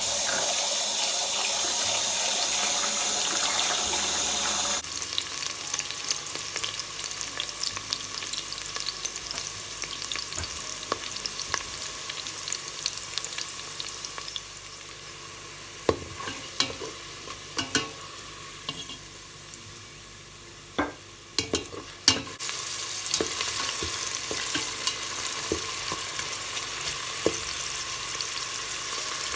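Food frying and sizzling in a pan: loud for the first few seconds, quieter through the middle with a handful of sharp knocks and clicks as it is stirred, then sizzling louder again for the last several seconds.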